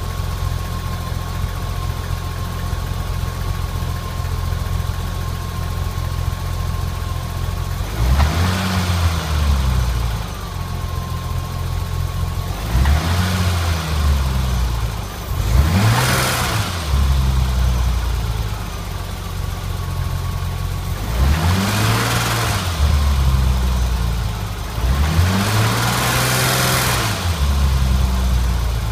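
BMW E30 engine idling with a thin, steady high whine, then blipped up and back down five times about a second or two each; the whine drops out while it revs. The revving is done to show a noise the car makes when revved.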